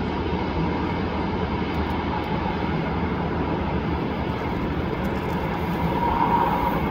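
Jet airliner on final approach, its engines giving a steady rumble with a faint whine that swells briefly near the end.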